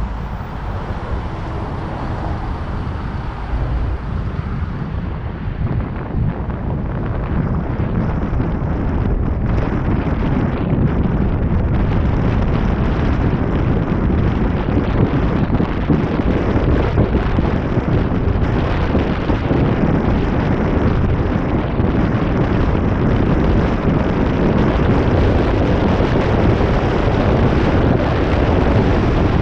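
Wind buffeting the microphone of a roof-mounted camera, mixed with road and traffic noise from a moving vehicle. It grows louder from about five seconds in as the vehicle picks up speed, then stays loud and steady.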